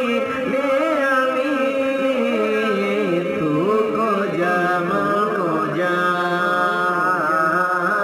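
Islamic devotional background music: a sung voice chanting a slow, ornamented melody with long held, wavering notes, without a break.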